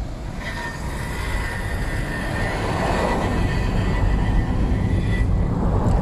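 Road and engine noise of a moving car in traffic, heard from the car as it drives, growing louder as it gathers speed, with a steady high whine from just after the start until about a second before the end.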